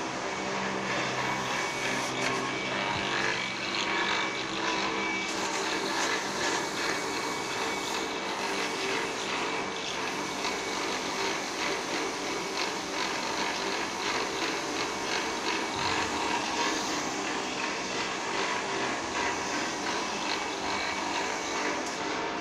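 Motor-driven grinding wheel running steadily, with a dense scraping hiss as a steel engine cylinder sleeve is held against the spinning wheel.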